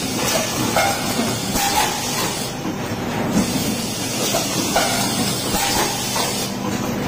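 Pneumatic bottle blow-moulding machine running: a steady hiss of compressed air with small mechanical knocks, the hiss pausing briefly twice, about four seconds apart, as the machine cycles.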